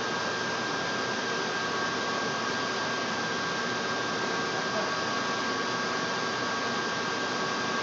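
Steady, even background hiss with two faint, steady high tones running through it.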